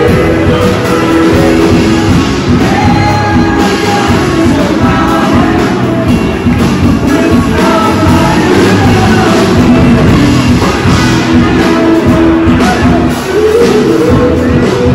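A live band playing rock music, with a singer and guitar.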